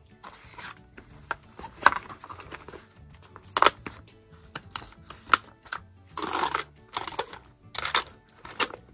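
Background music under irregular clicks and knocks of small toiletry bottles and containers being handled and packed into bags, with a short rustle a little past six seconds in.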